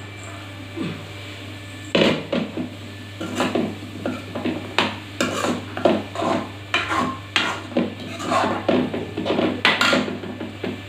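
Kitchen clatter: a rapid, irregular run of short knocks and rattles that starts about two seconds in and goes on until near the end, over a steady low hum.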